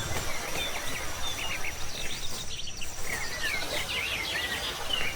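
Birds chirping in many short calls, busiest in the second half, over a steady high insect trill and a low background noise.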